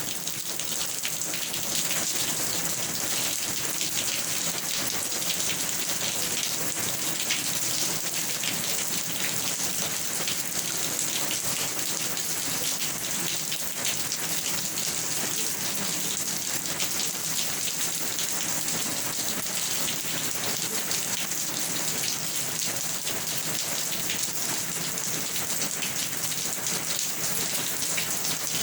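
Steady rain falling: an even, unbroken hiss with many small drop hits, holding the same level throughout.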